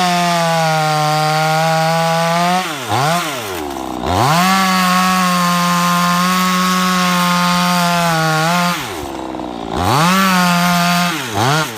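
Chainsaw running at full throttle cutting wood. The engine drops off toward idle about three seconds in and again near nine seconds, revving back up to full speed each time, with a brief blip of the throttle near the end.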